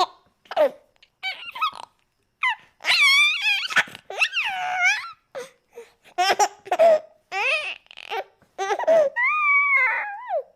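A baby laughing and babbling in a string of short, high-pitched, wavering bursts with brief pauses between them.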